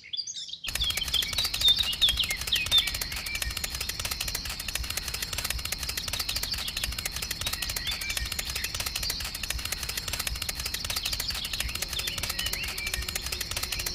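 A small electric motor running with a fast, even rattling tick, starting just under a second in, with birds chirping over it.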